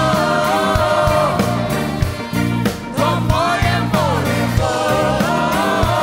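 Live rock band with drums and bass, and voices singing long held notes together, three times over, each bending into pitch at its start.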